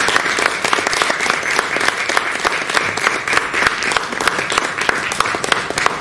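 Audience applauding: many hands clapping in a dense, irregular patter.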